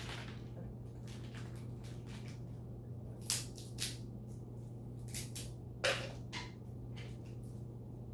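Pet monkeys handling and eating peanuts: a few scattered sharp cracks and crackles, the loudest about three and six seconds in, over a steady low hum.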